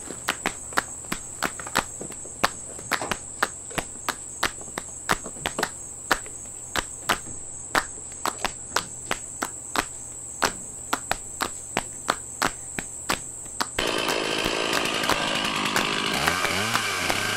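A steady high insect drone with sharp, regular ticks, about two or three a second. About fourteen seconds in, it gives way to a Stihl chainsaw's two-stroke engine running at idle, louder, with its pitch wavering slightly.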